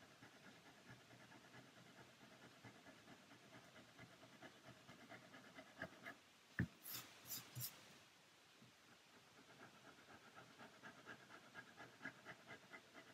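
Faint rhythmic rasping of a small round file stroked back and forth along the edge of a wooden false keel, cutting a groove. About halfway through there is a sharp click, then three short, brighter hissing strokes.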